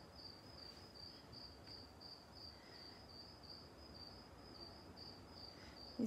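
Near silence, with a faint high-pitched chirp pulsing evenly about three times a second.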